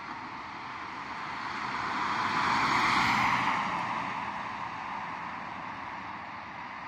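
A road vehicle driving past, its tyre and engine noise swelling to a peak about three seconds in and then fading away.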